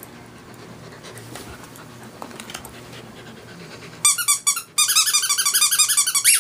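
Australian shepherd puppy giving a fast run of short, high-pitched squeaky whines, about ten a second, starting about four seconds in after a quieter stretch. It is the sound of a pup excited and eager for her ball to be thrown.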